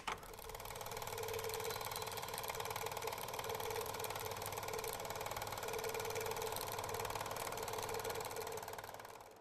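Old film projector running: a steady, fast mechanical clatter with a hum, fading out near the end.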